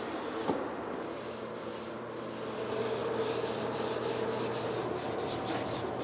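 Cloth rag rubbing wood stain onto pine door molding in repeated wiping strokes, over a steady low hum.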